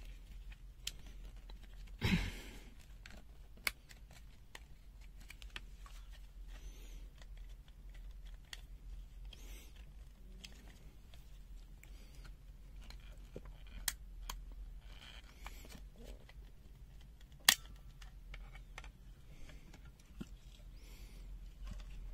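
Plastic case of an Aneng ST211 clamp meter being handled and opened with tools: scattered small clicks and scrapes, a knock about two seconds in and a sharp click, the loudest sound, late on.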